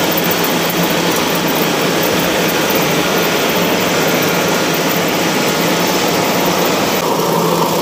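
Yanmar 82 rice combine harvester's diesel engine running steadily with a constant hum as the tracked machine labours through deep, sticky paddy mud.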